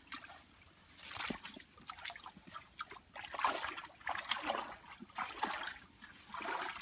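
Bare feet wading through shallow muddy water, splashing with each step, roughly once a second.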